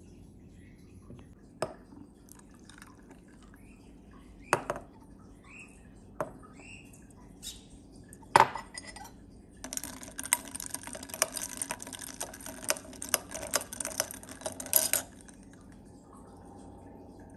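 Clinks of glass or dishes, four separate knocks, then about five seconds of dense rattling and splashing like liquid being poured into a glass, with faint bird chirps in the background.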